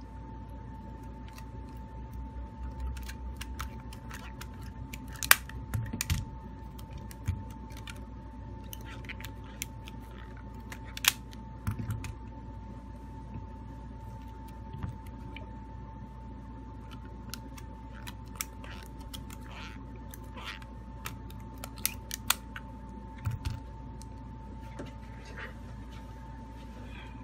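Scattered light clicks and taps of a smartphone being handled and set down on a rubber repair mat, with a few sharper knocks, over a steady whine and low hum.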